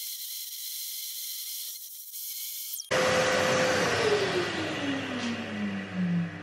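CNC router spindle motor: a thin, high hiss at first, then about three seconds in a fuller steady whine whose pitch, after about a second, falls smoothly and steadily as the spindle winds down after being switched off.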